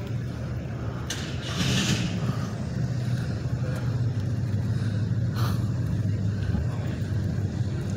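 A car engine idling steadily in a low hum, with a couple of brief rustles about a second and a half in and again past five seconds.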